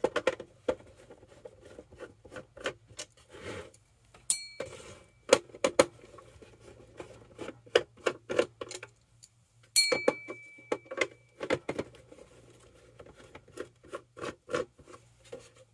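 Screwdriver backing small screws out of a hollow plastic toy Jeep body: an irregular run of small clicks and ticks from the bit and the plastic shell being handled, with two brief high squeaks, one about four seconds in and one near ten seconds, over a faint low hum.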